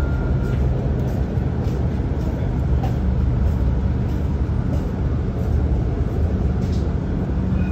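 Interior noise of a moving Dubai tram: a steady low rumble and hum of the tram car running along the track.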